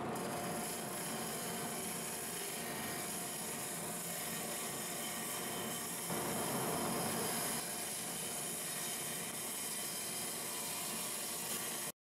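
Gouge cutting a spinning log of hard, long-seasoned Osage orange on a wood lathe: a steady rough scraping hiss of the cut over the lathe's running. It stops abruptly at the very end.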